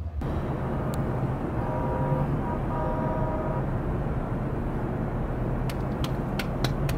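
Outdoor traffic ambience: a steady low rumble of passing vehicles. About two seconds in, a pitched tone sounds twice in a row, and a few sharp clicks come near the end.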